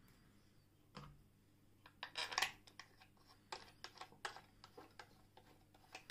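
Small metal clicks and rattles from an antique L.O. Dietrich Vesta hand-crank sewing machine as its parts at the needle plate are handled. A soft thump about a second in, a quick cluster of rattles around two seconds in, then a string of separate clicks.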